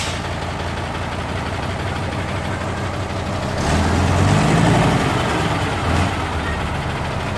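Isuzu Giga dump truck's diesel engine idling steadily, then revving up for about two seconds a little past the middle and settling back to idle, as the truck is tried in first gear on its newly replaced clutch lining.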